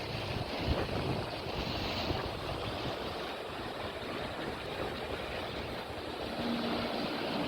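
Sea waves washing on the shore, with wind buffeting the microphone in a steady rush. A faint low hum comes in near the end.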